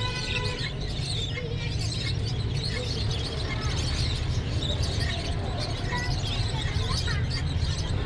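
Many small cage birds chirping and chattering, short high chirps scattered throughout, over a steady low rumble of background noise.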